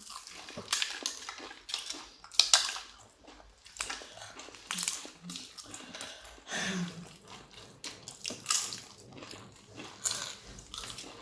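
People eating close to the microphone: irregular chewing, crunching and wet mouth and hand noises, with light clinks from plates.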